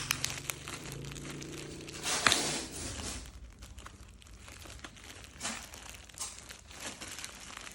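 Packing tape being ripped off a parcel, with one loud tearing rip about two seconds in, then crinkling of the wrapping and a few short scraping rips.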